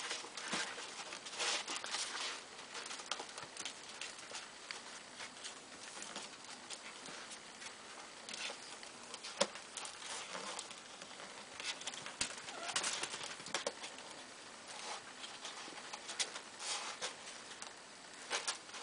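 Month-old kittens digging and scrambling in a plastic litter box: irregular scratching and rattling of the litter granules, with short clicks and scrapes against the plastic tub.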